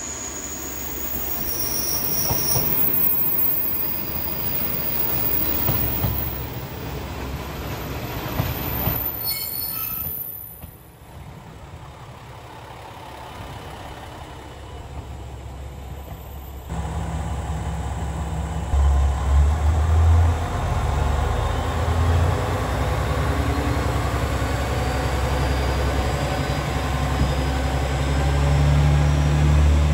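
KiHa 47 diesel railcar pulling into a station: wheel and brake squeal with rolling noise as it comes in, then the deep, steady rumble of its diesel engine running beside the platform in the second half.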